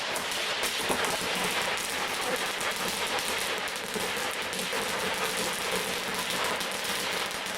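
Firework fountain shooting out a steady stream of hissing, crackling sparks. It cuts in sharply and fades slightly near the end.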